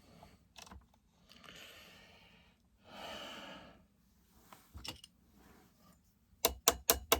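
Two soft breathy exhales, then near the end a quick run of sharp metal clicks, about six a second: the links of a saw chain clicking as a link stiffened by gummed bar oil is worked free by hand.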